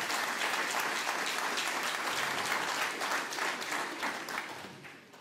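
Audience applauding, steady at first and then fading away over the last second or so.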